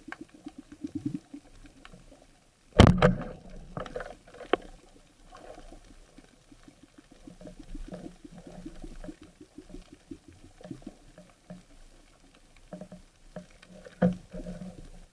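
Underwater clicking and crackling in rapid runs, with a sharp knock about three seconds in and another near the end.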